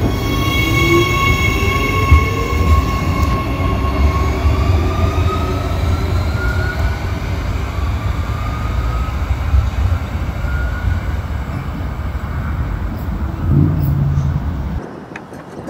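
Adelaide Metro 4000-series electric train pulling out and accelerating away, a whine rising in pitch over a steady rumble of wheels on rail. Near the end the sound drops off suddenly to a much quieter open-air background.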